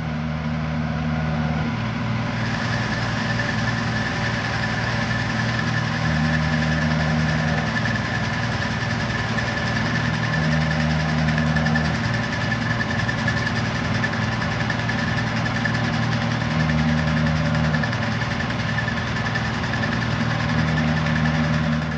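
Milling machine spindle running while a cutter machines the bore of a black anodized aluminium model-engine block: a steady motor hum with a high whine over it.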